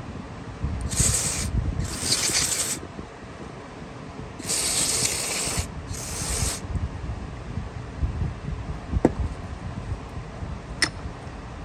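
Aerosol carburetor cleaner sprayed through its red straw into a lawnmower carburetor's passages, in four hissing bursts of about a second each, in two pairs, to flush out clogs. A few light clicks of the metal part being handled follow.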